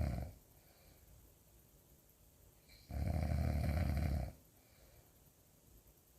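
Loud snoring: heavy, rattling snores repeating about every four seconds. One ends just after the start, and another about three seconds in lasts just over a second.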